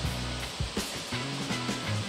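Background music: low held notes that step from one pitch to the next, with a few light percussive strikes, over a steady hiss.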